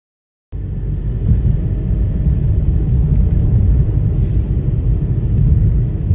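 Steady low rumble of a car driving, road and engine noise heard from inside the vehicle. It cuts in abruptly after a moment of silence.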